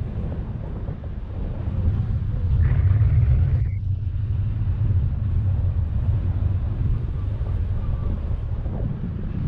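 Wind buffeting the microphone during a paraglider flight: a steady low rumble that swells for about a second roughly three seconds in.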